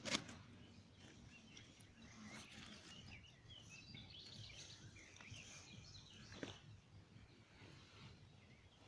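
Faint birdsong over quiet outdoor ambience, with a short knock at the start and another about six and a half seconds in.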